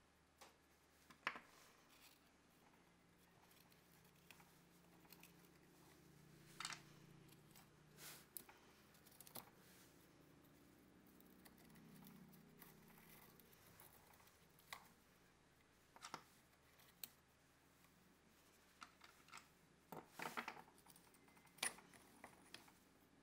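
Faint, scattered clicks and light taps of tools and parts being handled, over a low steady hum; a small cluster of clicks comes near the end.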